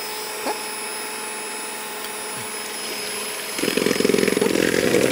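Electric hand mixer running with its beaters in a plastic bowl, creaming butter as an egg is beaten in. About three and a half seconds in it grows clearly louder and rougher as the beaters churn through the mixture.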